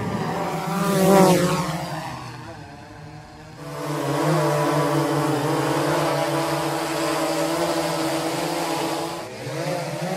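DJI quadcopter drone's rotors whining as it flies past, the pitch sweeping up and falling away about a second in, then a steady, slightly wavering motor hum as it hovers.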